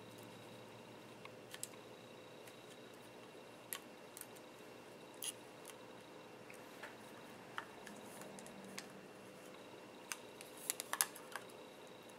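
Small phone parts handled during a screen-replacement reassembly: scattered light clicks and taps of plastic and metal pieces, with a quick run of sharper clicks about ten to eleven seconds in, over a faint steady hum.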